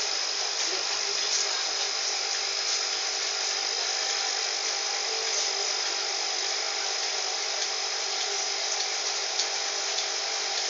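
Steady rushing of water in an aquarium waterfall, with a constant high-pitched whine running through it.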